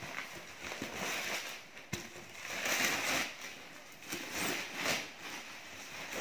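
Bubble wrap and a tape-wrapped cardboard box being handled and pulled apart: crinkling, rustling and scraping, loudest about three seconds in.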